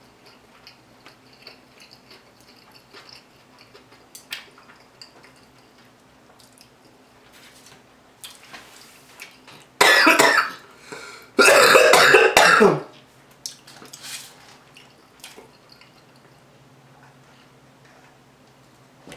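A woman eating, with faint mouth sounds, breaks into two loud bursts of coughing about ten and twelve seconds in, set off by a bite of sushi dipped in very hot spicy sauce.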